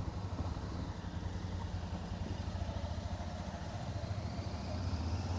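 Motorcycle engine running while riding at low speed, a steady low rumble; its pitch rises near the end as the bike speeds up.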